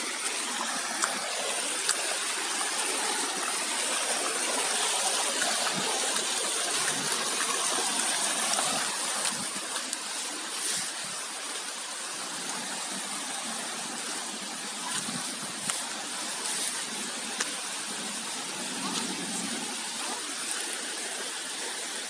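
Stream water rushing over rocks as a steady hiss, a little louder for a few seconds in the first half, with a few sharp clicks.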